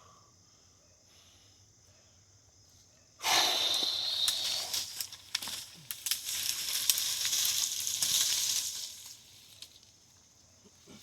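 Leaves and twigs rustling and crackling, starting suddenly about three seconds in and running for about six seconds with many small snaps before dying down.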